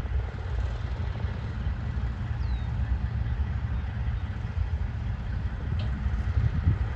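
Heavy diesel truck engines hauling a super-load at a crawl: a steady low rumble.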